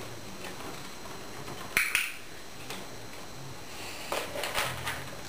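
A Border Collie puppy's claws clicking and tapping on a bare wooden floor as it steps around. The sharpest click comes about two seconds in, with a cluster of lighter taps a little after four seconds.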